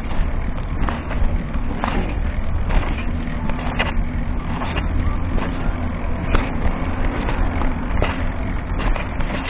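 A car driving: steady low engine and road rumble with an even engine hum, heard through a dashcam inside the car, with scattered short clicks or knocks about once a second.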